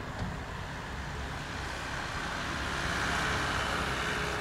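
Distant jet noise from the twin Rolls-Royce Trent 700 engines of a landing Airbus A330, a steady rush over a low rumble. It swells about three seconds in and eases off near the end.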